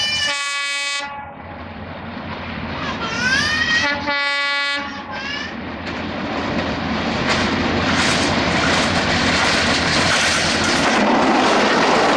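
Diesel locomotive horn blowing as the express approaches: one blast ending about a second in, a second short blast at about four seconds. Then the locomotive's engine and the rolling wheels of the passenger coaches grow louder as the train passes close by, clattering over the rail joints.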